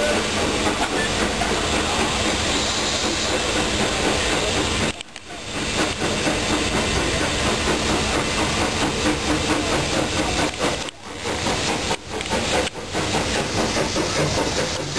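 Small steam tank locomotives hissing steam while working slowly through a station yard, with rail and running-gear noise underneath. The sound is steady and loud, and dips briefly about five seconds in and a few times near the end.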